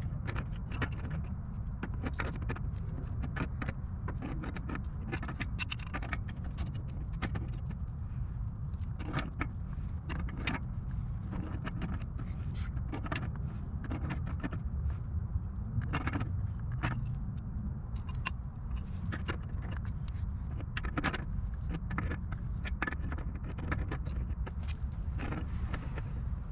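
Irregular metallic clinks and taps of a wrench on black steel gas pipe fittings at a gas meter as the joints are turned and tightened, over a steady low rumble.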